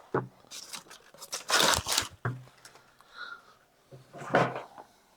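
Product packaging being torn open and handled: several short bursts of tearing and crinkling, the loudest about a second and a half in and another near the end.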